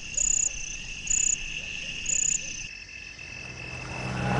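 Night insects calling: a steady high trill with a louder, higher chirping burst about once a second, three times, each stepping down in pitch partway through. A low drone swells in near the end.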